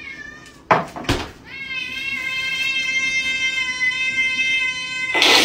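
A cat gives one long, steady yowling meow, lasting about three and a half seconds and rising in pitch at its start. Two sharp knocks come just before it, and a loud brief rush of noise cuts in at the end.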